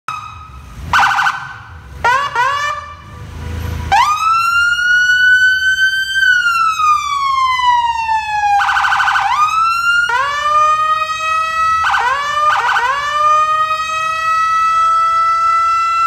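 Whelen 295SL100 electronic police siren sounding through a low-profile speaker and cycling through its tones. There are two short buzzing horn blasts, about a second in and again past halfway, and a few quick rising whoops. A long wail climbs, then falls slowly. Near the end, rising chirps lead into a high tone held steady.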